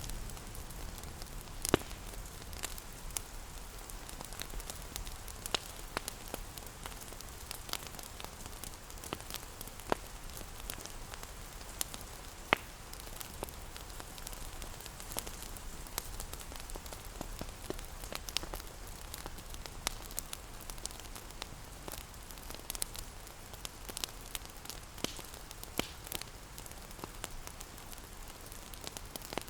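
Fireplace fire crackling with irregular sharp pops over a steady hiss of rain.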